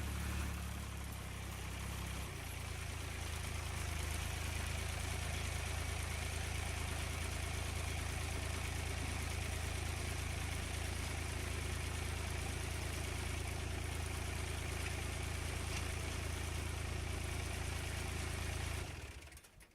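Ford 4500 tractor-loader-backhoe engine idling steadily, its hum settling slightly about two seconds in and dying away just before the end.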